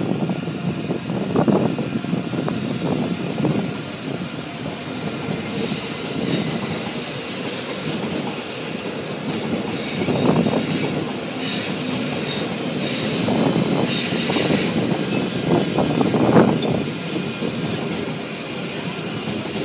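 Train running slowly over station trackwork: a steady rumble of wheels on rail with repeated surges. From about 5 s to 15 s in, thin high wheel squeals come and go.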